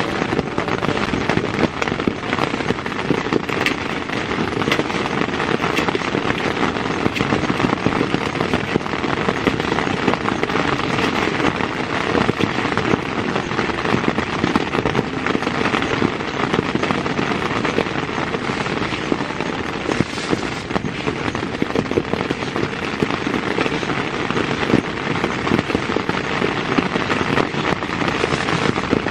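Heavy rain falling on the tent, a dense, steady crackle of countless drops hitting the fabric.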